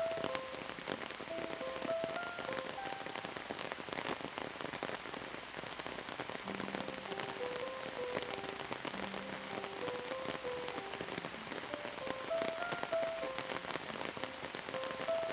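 Steady rain falling, with many small drop taps. A soft, slow melody of single notes plays over it, with two longer low notes about six and nine seconds in.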